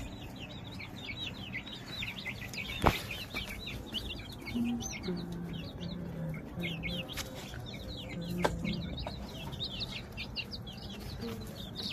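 Many young chicken chicks peeping continuously, short high chirps overlapping one another. A few short low clucks come from an older chicken in the middle, and there is one sharp tap about three seconds in.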